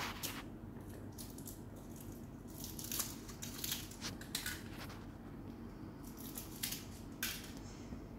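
Foil wrapper of a Kinder Surprise chocolate egg crinkling and rustling as it is peeled off by hand, in short irregular bursts over a faint low hum.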